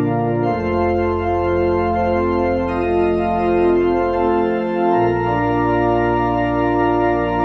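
Church organ playing held chords, likely a hymn, with the low bass notes changing about half a second in and again about five seconds in.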